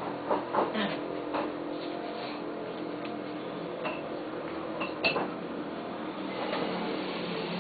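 Steady background hum of a bar with a few short clinks and knocks of tableware. Several come in the first second and a half, and the sharpest, with a brief ring, comes about five seconds in.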